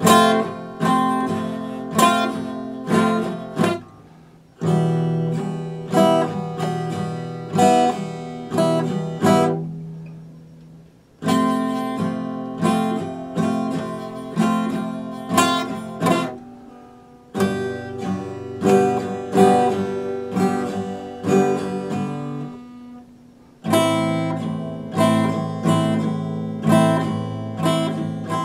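Epiphone acoustic guitar played solo, with no singing: chords strummed in phrases of about six seconds, each starting with a hard strum and ringing down before the next phrase begins.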